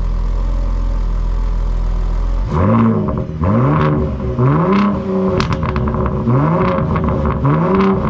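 2022 Ford F-150 Raptor's twin-turbo 3.5-litre V6 exhaust in Sport Mode, heard from the dual tailpipes. It idles steadily, then from about two and a half seconds in it is revved repeatedly, about once a second, each rev rising and falling in pitch.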